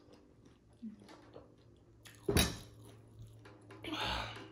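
Chewing of dahi puri, crisp puris filled with yogurt, with one sharp louder bite about two seconds in and a brief rush of sound near the end.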